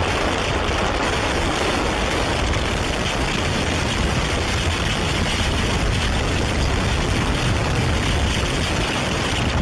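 Severe thunderstorm wind and heavy rain buffeting a car, heard from inside the cabin as a steady rushing noise over a deep rumble.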